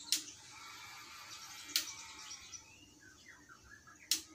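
Three sharp light clicks, a second and a half to two and a half seconds apart, from a laptop motherboard being handled and set against a silicone repair mat.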